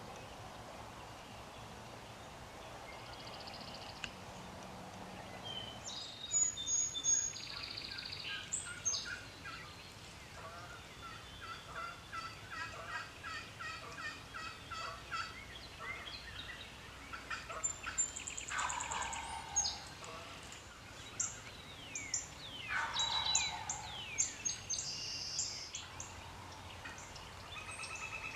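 Wild turkey gobbler gobbling several times, mixed with songbirds chirping; the first few seconds are quiet.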